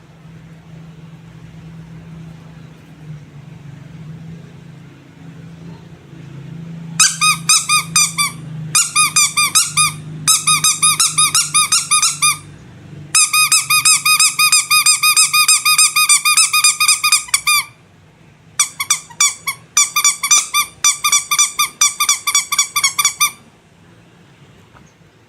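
Squeaky rubber toy squeezed over and over in quick runs, about five or six high squeaks a second, each at the same pitch, with short breaks between runs. For the first several seconds only a faint low hum is heard before the squeaking starts.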